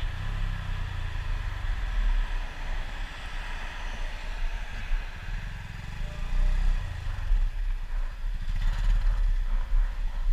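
Motorcycle engine running at low road speed, heard from the rider's helmet camera with wind noise over the microphone. The engine note sags a little around the middle and picks up again.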